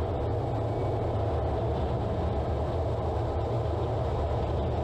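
Steady low rumble of engine and rushing air heard inside a fighter jet's cockpit in flight.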